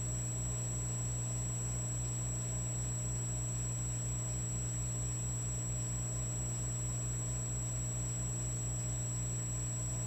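Electric fireplace log set running with a steady electrical hum and buzz, a faint high whine above it, and a low throb pulsing about three or four times a second.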